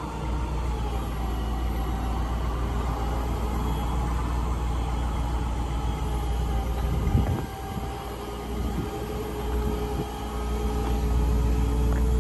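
A RAM 5500 bucket truck's 6.4-litre gas V8 runs steadily, powering the hydraulics of the Versalift telescopic boom as it is operated. There is a steady low rumble with a faint steady hum over it, and the level dips briefly about seven seconds in.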